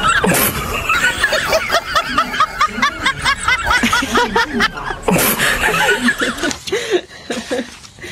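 Baby macaque crying loudly in distress, a rapid string of short squealing cries about five a second, tailing off near the end, while an adult macaque handles it and cleans its wound.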